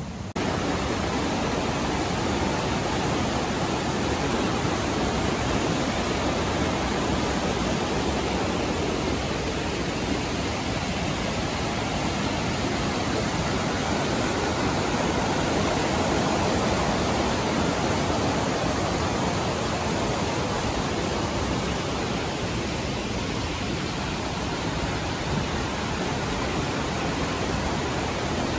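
Rushing whitewater of a river's rapids and waterfall: a steady, loud noise that jumps up suddenly just after the start and then holds even.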